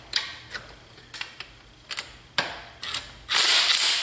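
A few short metal clicks as a socket and extension are set on a bolt. About three seconds in, a cordless drill starts spinning steadily, backing out a thermostat housing retaining bolt.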